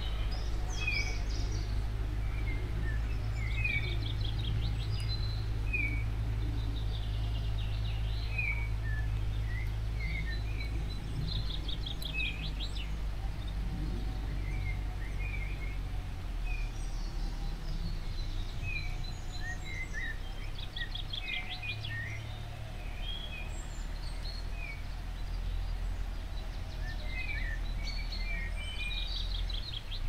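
Wild birds singing in woodland: short chirping notes repeated every second or so throughout, with a few fast higher trills, over a steady low background rumble.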